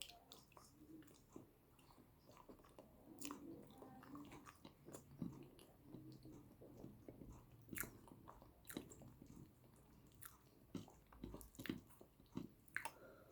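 Close-miked eating of yam with eggplant sauce: chewing and biting, with irregular soft mouth clicks.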